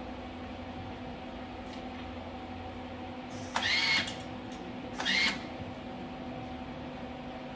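Steady shop hum, broken twice, about a second and a half apart, by a short high-pitched metallic squeal as steel exhaust pipe sections are worked together at a welding bench.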